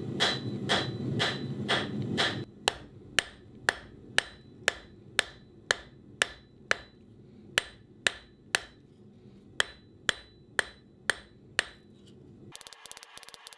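Hand hammer striking hot steel on an anvil, about two ringing blows a second with a couple of short pauses, as the bar is drawn out into a taper. A steady low rumble lies under the first two seconds, and a fast rattling starts near the end.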